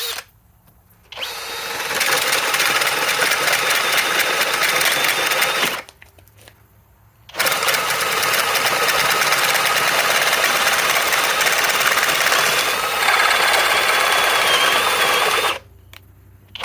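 Flex FX1271T cordless hammer drill boring with a nearly 2-inch bit at speed 1, turbo mode off. It runs under load for about four and a half seconds, stops briefly, then starts again and runs for about eight seconds before stopping.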